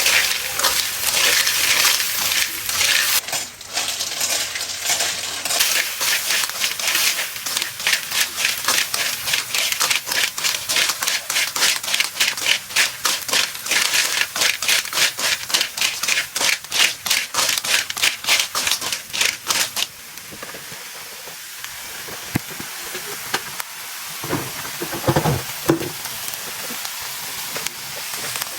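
Rhythmic scraping or rubbing strokes, about two or three a second, that stop about two-thirds of the way through, leaving a softer steady hiss.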